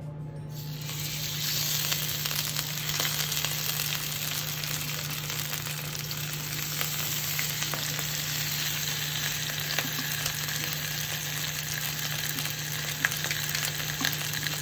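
Flour-coated yellow grouper steaks sizzling as they sear in smoking-hot oil in an enamelled cast-iron pan. The sizzle rises within the first second as the fish goes in and then holds steady, with a couple of sharp clicks in the second half.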